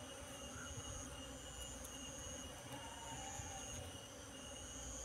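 Steady low hum of Asian honey bees (Apis cerana) buzzing around their opened comb. Over it, high-pitched insect trills come and go in stretches of about a second.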